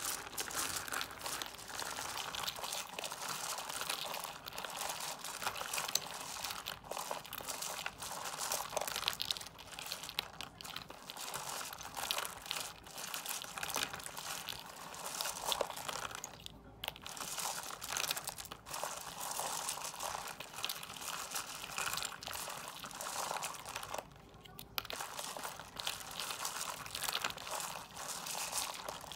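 Hands stirring and sifting a heap of folded paper lucky stars, plastic dice and small plastic and foam toys: continuous crinkling and rustling with many small clicks and rattles. It drops off briefly twice, about two-thirds and four-fifths of the way through.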